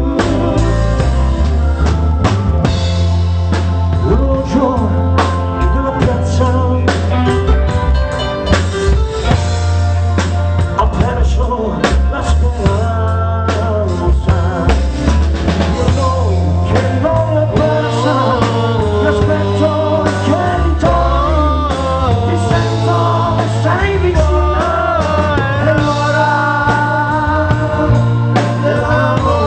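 Live pop band playing a song: drum kit and bass with keyboards, and a voice singing over it, more prominent in the second half.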